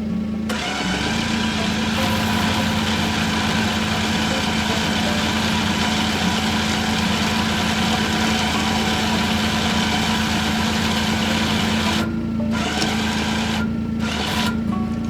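An engine running steadily at a constant speed, with a wide hissing noise over its hum; the noise drops away briefly twice near the end.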